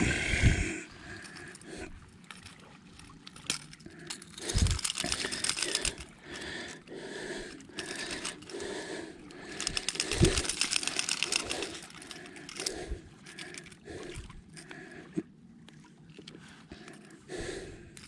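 Unhooking a fish held in a lip-grip: metal pliers and lure hooks clicking and rattling, in two spells of rapid clicking with a few dull thumps between.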